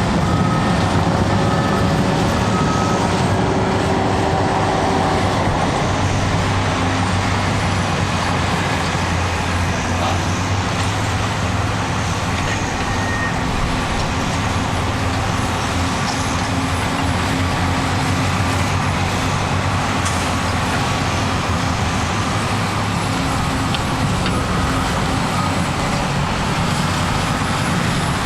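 Cat D6T bulldozer's diesel engine running steadily under working load. A backup alarm beeps evenly in the first few seconds.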